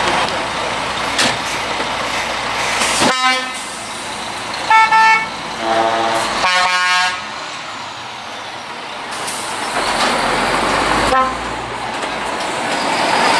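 Lorry horns honking in a string of short blasts of two different pitches, between about three and seven seconds in, over the running engines of trucks driving slowly past.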